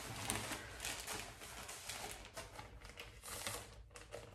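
Plastic packaging rustling and crinkling as a clear plastic garment bag is handled and tugged open, with irregular small crackles and clicks.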